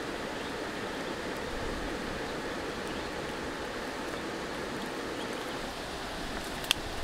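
Steady rush of a flowing river, with one sharp click a little before the end.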